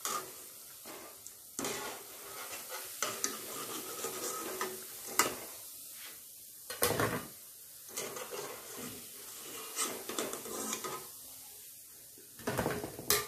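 Wire mesh skimmer clinking and scraping against an aluminium kadai as fried bread slices are scooped out of hot oil, over a steady sizzle of frying. Several sharp clinks come through, the loudest near the end.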